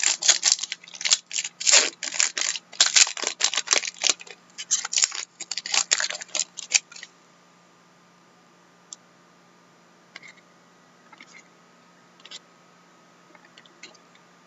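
Foil trading-card pack wrapper crackling as it is torn open and handled, in quick dense crackles for about seven seconds, followed by a few faint clicks as the cards are handled.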